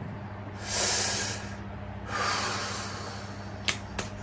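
A person breathing out slowly and audibly twice while holding a lying lower-back stretch: two long airy exhales, the second fading away, over a steady low hum, with a couple of faint clicks near the end.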